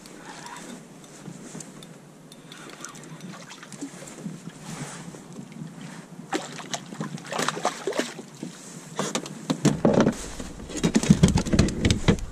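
Splashing and knocking as a hooked tautog is drawn up from the water and lifted into a plastic kayak. The heaviest thumps come near the end, as the fish lands aboard.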